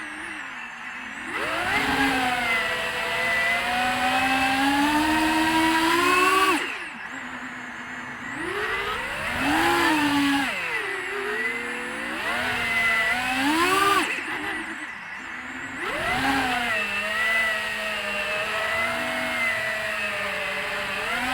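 Skyeliner HD FPV quadcopter's motors and propellers whining, the pitch rising and falling with the throttle. There are sharp climbs about a second in, around 10 s, around 14 s and near the end, and brief throttle cuts where the sound drops away, around 7 s and 15 s.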